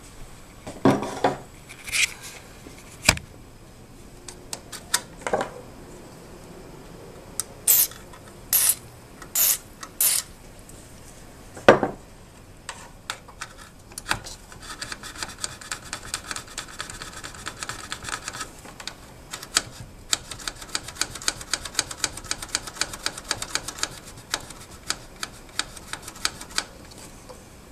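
A few handling knocks, then four short hissing bursts of DeoxIT contact-cleaner spray. After that comes a long run of rapid scratchy crackling as a plug or control on the front panel of the tube amplifier is worked back and forth, the noise of a dirty, touchy connection being cleaned.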